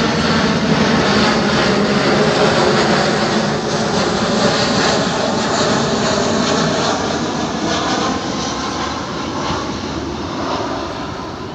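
Boeing 737-800 jet airliner passing low overhead on final approach with its landing gear down, its CFM56-7B turbofan engines making a loud, steady roar. The roar slowly fades over the last few seconds as the aircraft moves away.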